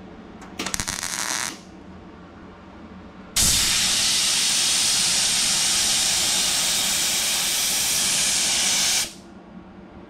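A compressed-air blow gun hissing steadily for about five and a half seconds, aimed at a fresh weld on a car's sheet-metal door, then cut off sharply. Before it, about a second of MIG welding crackle from a short tack weld.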